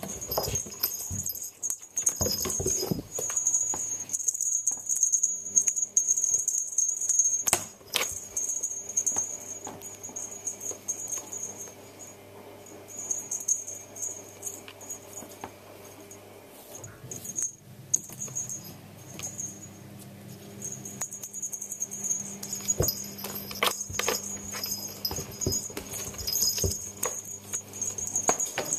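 A cat's paws pattering, scuffing and thumping on bare wooden floorboards as it pounces on a ribbon-and-cord wand toy, the toy brushing and slapping the boards, in scattered sharp taps. A faint steady hum runs underneath.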